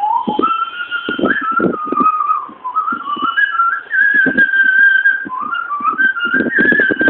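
A person whistling a tune by mouth. The melody moves up and down in short steps between notes and holds one note for about a second midway, with low rhythmic thuds underneath.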